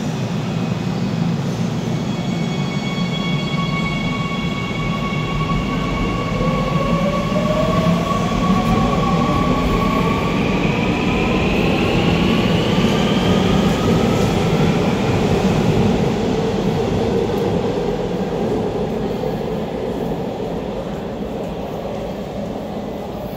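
Seoul Subway Line 2 electric train pulling out of the station. A steady hum and rumble, then from about six seconds in the traction motors' whine rises in pitch as the train picks up speed, and the sound fades as the train moves off near the end.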